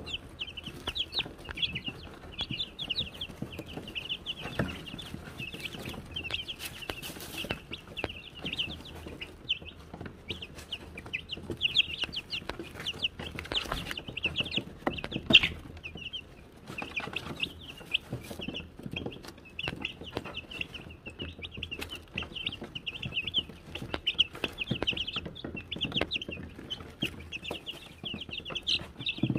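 A brood of Wyandotte chicks peeping continuously in rapid, short, high chirps, with scattered sharp taps among them.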